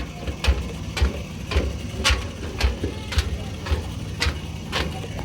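Footsteps at a steady walking pace, about two a second, over a steady low engine hum.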